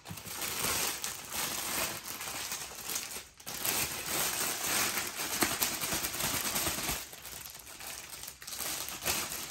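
Clear cellophane bag crinkling as hands grip and work it to free a panettone. The crinkling is continuous, with a short break about three seconds in, and gets quieter near the end.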